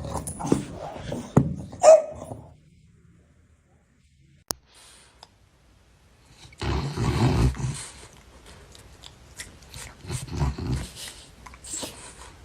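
A dog growling and barking in short bursts, with a lull of a few seconds in the middle broken by one sharp click.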